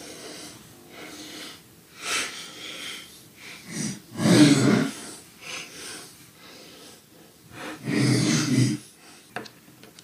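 A person breathing out audibly three times, about two, four and a half and eight seconds in; the middle breath is the loudest.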